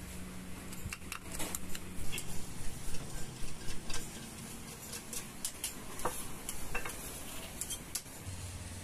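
Kitchen utensils knocking and scraping: a run of irregular light knocks, busiest about two to four seconds in, over a faint steady low hum.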